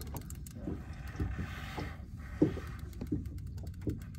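Spinning reel on an ultralight rod whirring for about two seconds while a hooked fish is fought, over a low wind rumble, with a few small knocks.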